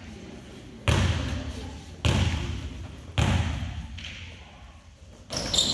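A basketball bounced three times on a hardwood gym floor, about a second apart, each bounce echoing in the hall. These are a free-throw shooter's deliberate dribbles before the shot.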